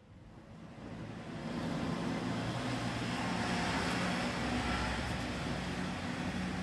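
Steady low rumble and hiss of outdoor background noise with a faint low hum, fading in over the first two seconds.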